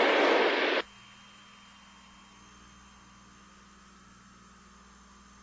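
A loud burst of static-like hiss that cuts off abruptly under a second in, followed by a faint steady hum and hiss.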